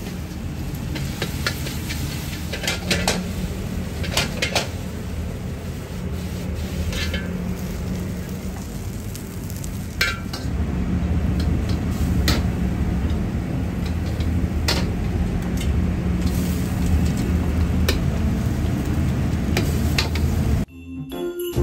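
Wok cooking over a high gas flame: a steady low burner roar under sizzling food, with a metal ladle scraping and clanking against the wok every second or two.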